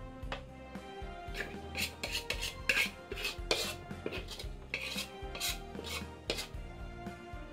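Metal spatula scraping fried noodles out of a wok, a quick series of rasping scrapes from about a second and a half in until near the end, over background music.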